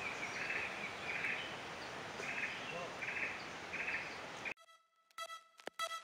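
Forest ambience: a steady hiss of background noise with a short, high chirp repeating every half second or so. About four and a half seconds in it cuts off abruptly to near silence, and faint notes of background music begin.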